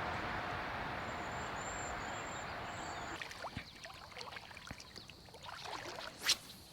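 Creek water rushing steadily. The sound drops away suddenly about three seconds in, leaving fainter water with scattered small clicks and one brief sharp noise near the end.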